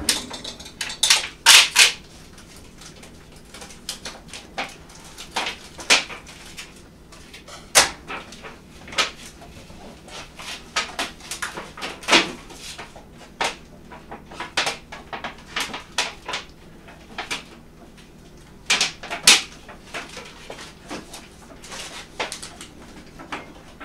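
Kitchen work noises: irregular clicks, taps and knocks of containers and utensils being handled on a counter, with a louder cluster about a second in and another near the end.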